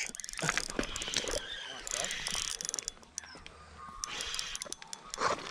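Spinning reel clicking and ratcheting in an irregular run of clicks as a hooked trout is played in on light line.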